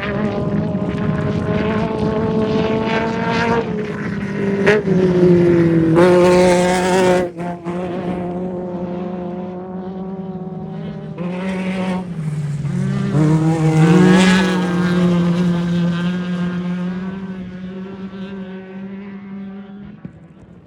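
Off-road race vehicle engine running hard at high revs. The pitch climbs, breaks off sharply about seven seconds in, climbs again to a peak around fourteen seconds, then the sound gradually fades as the vehicle moves away.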